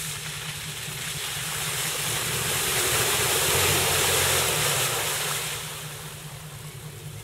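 Toyota FJ Cruiser's V6 engine running steadily under throttle while its tyres plough through a mud puddle, a rush of splashing mud and water that swells to a peak midway and fades near the end.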